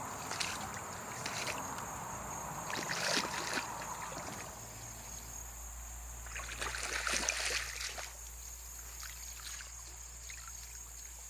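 Creek water sloshing and splashing in three louder swells over the stream's steady trickle.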